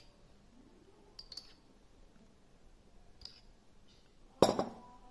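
A few faint clicks, then about four and a half seconds in a loud clink of a steel spoon against the dough bowl, leaving a short metallic ring.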